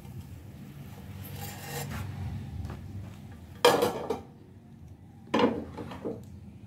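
A utensil scraping and knocking on a plate as a grilled toasted sandwich is set down on it. There is a faint rasp first, then two loud scrape-knocks, one about three and a half seconds in and another a second and a half later.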